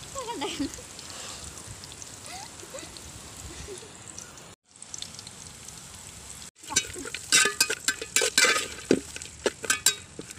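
A steel spoon scraping and clinking in a metal pan, stirring cashews, raisins and fruit pieces frying in ghee, with a faint sizzle. The clatter of stirring comes in about two-thirds of the way through, after a quieter opening.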